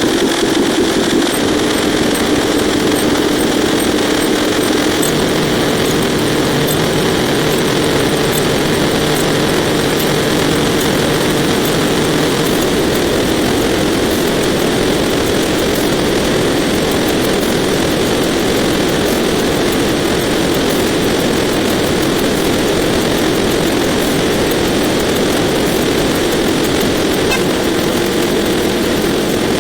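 Dense, unbroken din of many sound effects layered over one another and sped up, blending into a steady engine-like roar with a humming drone and faint rapid ticking.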